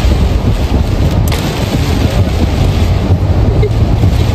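Steady low rumble of road and wind noise in a moving car.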